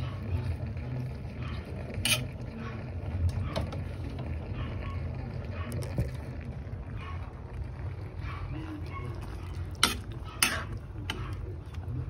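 A metal spoon stirring Malabar spinach leaves in a metal pot, with scattered sharp clinks of spoon against the pot; the loudest two come close together near the end. A steady low hum runs underneath.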